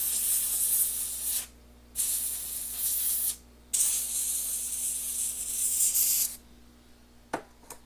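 Aerosol spray can hissing onto a phone logic board in three long bursts with short pauses between them, cleaning off flux after soldering. Two light clicks come near the end.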